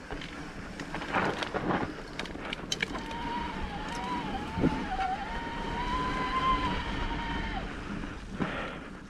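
Electric mountain bike's motor whining under pedal assist for several seconds in the middle, its pitch wavering slightly. Knocks and rattles from the bike rolling over rough trail come mostly in the first few seconds, over a steady rush of wind on the microphone.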